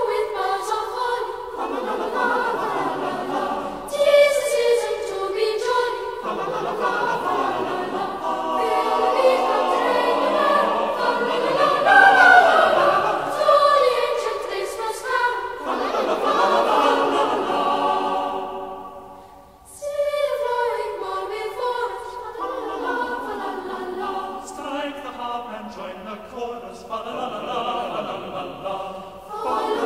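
Background music of voices singing together in choral style, in long sustained phrases, with a short break about nineteen seconds in.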